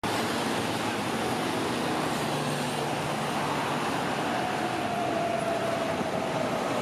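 Steady running noise of a moving vehicle, with a faint whine that slowly drops in pitch over the last few seconds.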